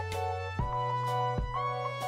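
Instrumental background music: held chords over a steady bass line, changing about once a second.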